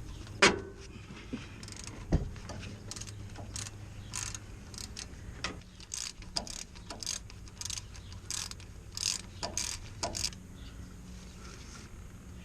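Hand ratchet with a 17 mm socket clicking in short bursts as the brake caliper bolts are undone, with two sharp metal knocks in the first couple of seconds.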